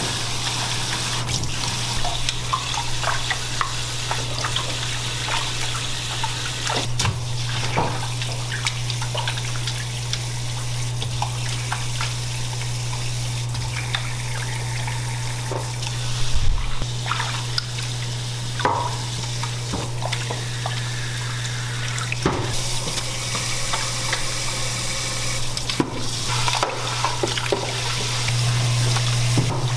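Tap water running steadily into a stainless steel sink full of soaking raw ribs, with scattered splashes and clicks as gloved hands rub the meat in the water, and a low thump partway through. A steady low hum runs underneath.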